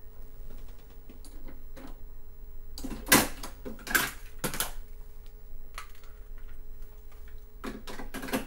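Plastic clicks and rattles of a compact cassette being handled, with three sharp clicks in the middle and a few more near the end, over a faint steady hum.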